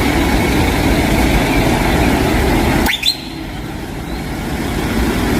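Cement mixer truck engine running steadily. About three seconds in it breaks off with a brief rising squeal, then runs on quieter and slowly swells again.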